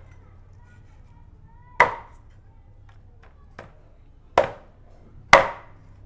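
A kitchen knife chopping on a cutting board: three heavy chops at uneven spacing, with two lighter strokes between them.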